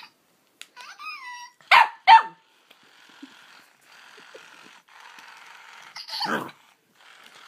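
Cavalier King Charles spaniel puppy barking in play at a plush toy held out to it: a short whine, then two sharp barks about two seconds in and one more near the end, with a softer steady rasping noise between them.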